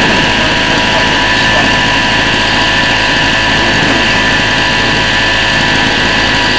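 Small portable petrol generator running loudly and steadily at a constant speed.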